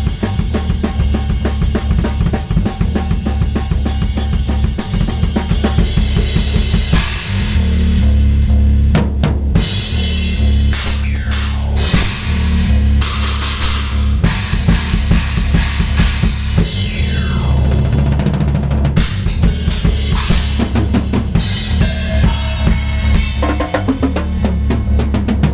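Drum kit played fast and busy, with bass drum, snare and cymbal crashes, over electronic audio samples that include falling sweeps.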